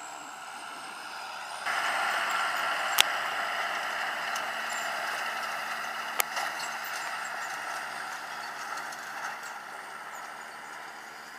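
John Deere tractor running while pulling a hay tedder through cut hay, a steady mechanical noise that gets louder just before two seconds in. Two sharp clicks about three and six seconds in.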